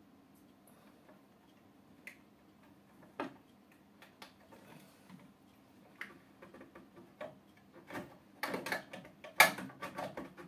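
Hands working inside an empty glass aquarium on a gravel bed: scattered clicks and knocks of items against the glass and gravel, then a denser run of clicks and rustling near the end, loudest about nine seconds in.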